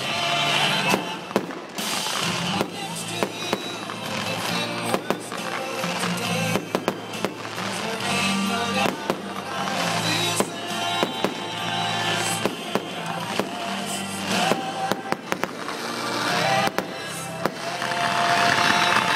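Aerial fireworks shells bursting in quick succession, many sharp bangs and crackling, over music playing with the show.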